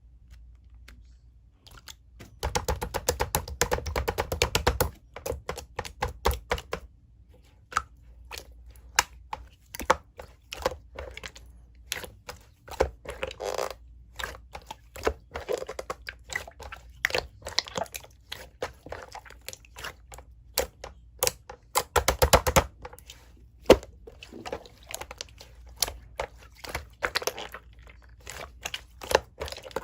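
Hands squeezing and pressing slime, giving off a rapid run of small clicks, pops and squelches, with dense crackling flurries about two seconds in and again near three-quarters through.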